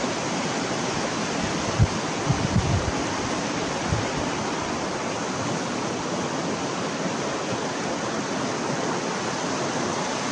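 Steady rushing of a shallow river over a stony bed, an even hiss, with a few soft low thumps about two and four seconds in.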